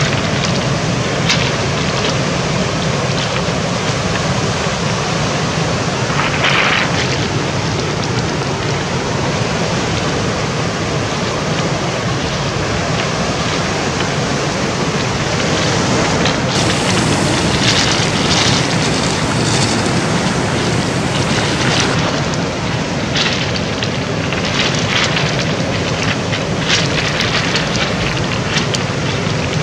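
Loud, steady wind noise on the microphone mixed with the sound of the sea, with a constant low hum underneath and a few brief brighter rushes about a third of the way in and again past the middle.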